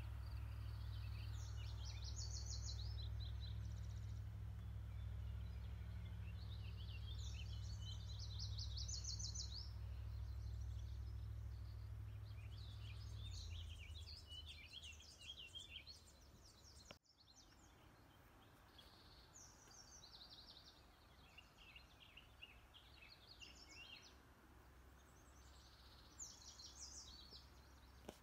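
Songbirds singing, repeating short, fast trilling phrases again and again, faintly, over a low steady hum that stops about halfway through.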